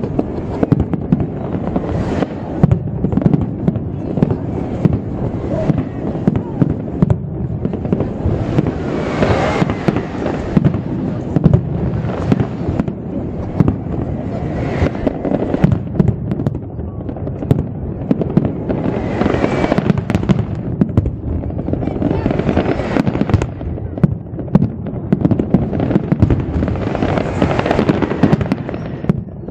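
Aerial fireworks display: a dense, unbroken barrage of bangs, swelling louder every few seconds.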